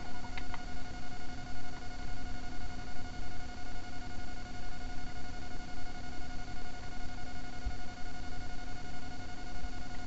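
Underwater camera recording: uneven low rumbling water noise under a steady hum made of several fixed tones, with a few faint clicks just after the start.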